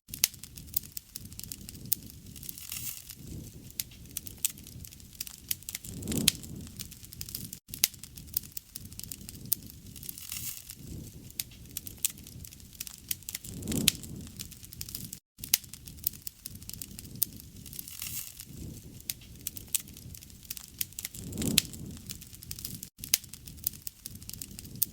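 Wood fire (bonfire) crackling steadily with many sharp pops and snaps. A soft low whoosh of flame swells about every seven to eight seconds.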